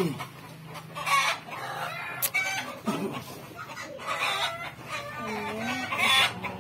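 A man groaning and moaning in pain in short bursts, with chickens clucking in the background.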